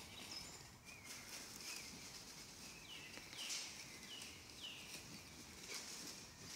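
Faint forest ambience. About halfway through, a songbird gives a run of four short, falling whistled notes.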